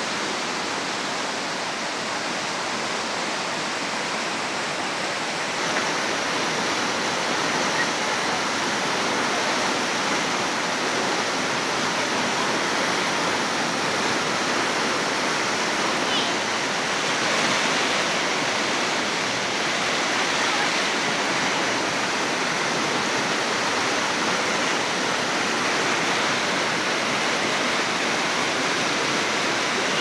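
A river in flood, its muddy water churning and rushing past in a steady, loud rush that grows a little stronger about five seconds in.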